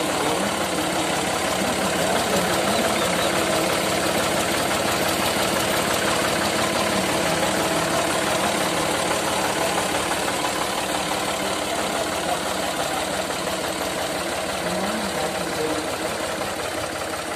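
Farm tractor's diesel engine running steadily at low speed as the tractor is driven slowly along a dirt track, heard up close.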